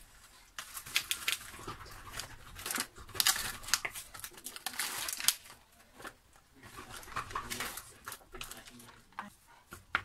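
Diced bacon lardons tipped from a plastic tray into a frying pan of onions, then stirred with a wooden spatula: irregular bursts of scraping and rustling with small clicks.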